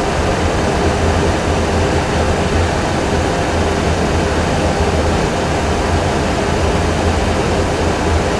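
Steady flight-deck noise of a Boeing 737 Classic full flight simulator: a constant rush of simulated engine and airflow sound over a low hum. No warning sounds or alarms; normal in-flight noise.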